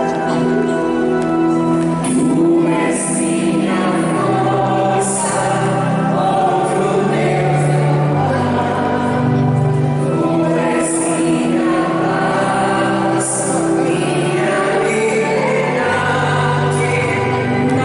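Church choir singing a hymn, with long held notes over a sustained low line.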